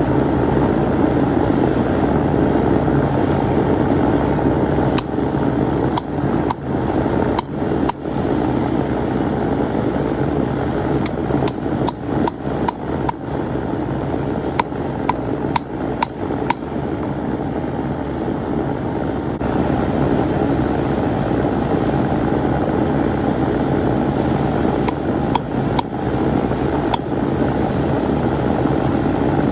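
Blacksmith's hammer striking metal on an anvil in irregular groups of blows, some with a short metallic ring, over a steady rushing noise.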